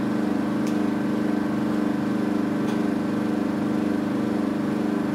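Vacuum pump of a Velashape-type body contouring machine running with a steady buzzing hum as the suction handpiece works the skin, with a couple of faint clicks.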